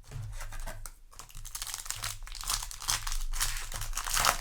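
Foil booster-pack wrapper crinkling and tearing, a dense run of crackles that grows busier in the second half.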